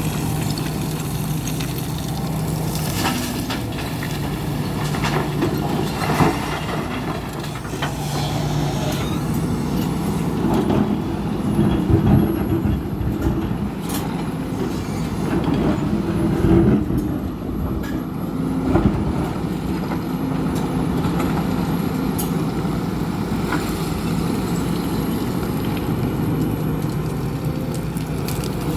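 Hidromek HMK 410LC excavator's diesel engine running steadily as it loads stone into a truck. Sharp knocks and clatter of rock striking the steel truck bed come several times, loudest about twelve and seventeen seconds in.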